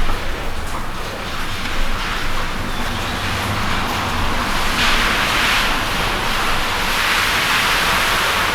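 Steady rain noise, a continuous hiss that grows heavier about five seconds in, over a low steady hum.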